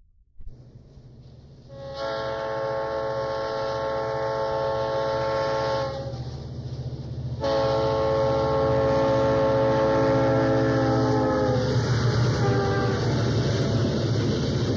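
Steam locomotive whistle blowing two long blasts, the second sagging slightly in pitch as it trails off, over the steady low rumble of a moving train.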